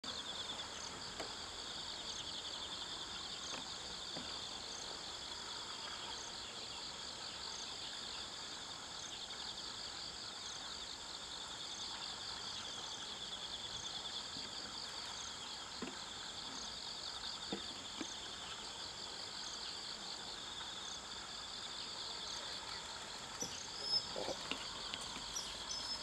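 Insects trilling in a steady chorus, a high, fast-pulsing buzz that never stops, with a fainter regular ticking above it. A single short knock stands out near the end.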